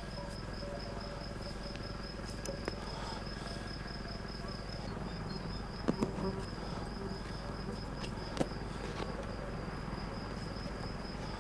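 Crickets chirping in a steady high trill, with a few short clicks from hand-sewing sheepskin with a needle and a leather thong.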